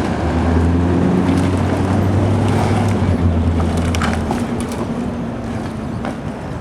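An engine drones steadily under loud cracking and splintering of wood, as storm-felled branches are cleared. The drone fades about four seconds in while the crackling goes on.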